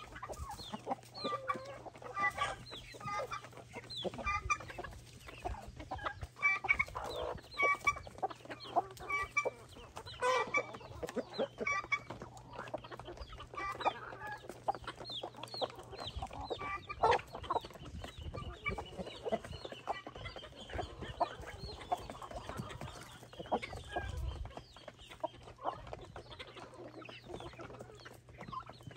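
A flock of chickens clucking at feeding time, many short calls overlapping throughout, with a few sharp knocks among them.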